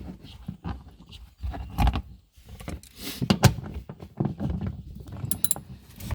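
Hands working plastic car bumper trim and its screws: scattered clicks, taps and rattles, with a heavier thump about two seconds in.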